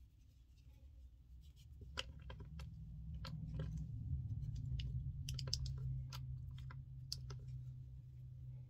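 Light irregular clicks and ticks of a small metal keyring clasp and fingers handling yarn on a wooden tabletop, over a low steady hum that grows a couple of seconds in and then holds.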